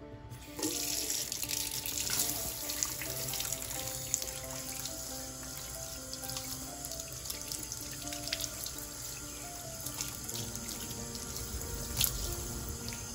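Bathroom sink tap turned on, water running steadily from the spout into a basin and splashing over hands. The flow starts suddenly about half a second in.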